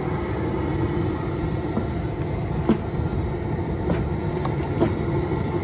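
Propane burner of a crawfish cooker running under the boil pot with a steady low rumble, with a few faint knocks.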